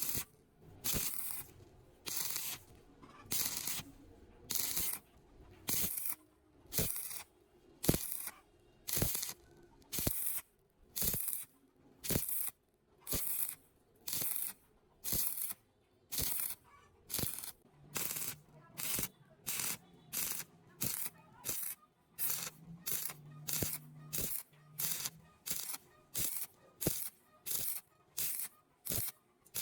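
Rhythmic scraping strokes of a hand tool on metal pipe, about one and a half strokes a second, each a short hissy rasp.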